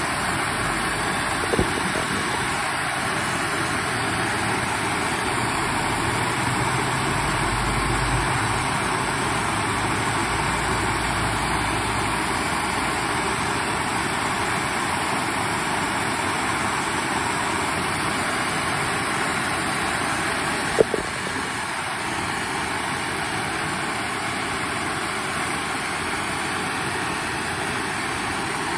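Handheld MAPP gas torch burning with a steady hiss, heating a part so that it expands for a shrink fit onto a shaft. A sharp click comes about twenty seconds in.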